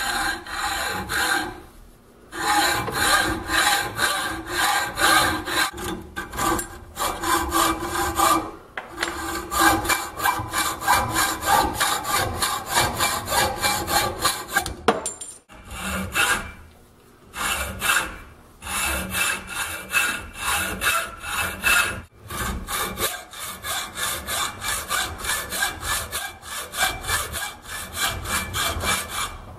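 Hand hacksaw cutting through flat steel strap clamped in a bench vise: rapid, even back-and-forth strokes, stopping briefly a few times.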